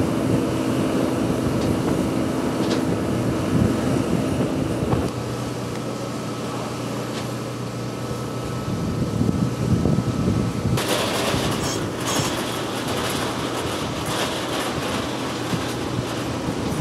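Steady mechanical drone of engines running on an airport apron, with a few sharp knocks. About eleven seconds in, a louder hissing rush joins in.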